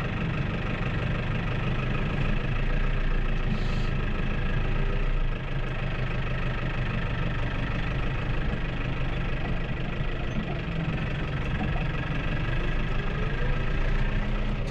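Tractor engine running at a steady speed, heard from inside the cab.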